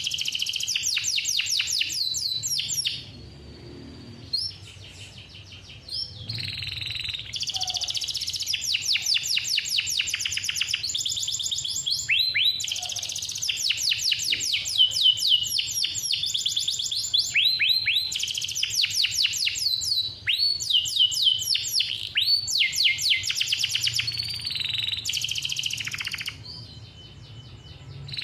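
Male domestic canary singing in long, rapid trills (rolls) of high repeated notes, phrase after phrase, with a brief lull about three seconds in and another near the end.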